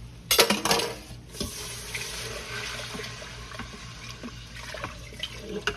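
Beef stock poured into the hot stainless inner pot of an Instant Pot on sauté, running as a steady splashing pour after a short loud burst near the start.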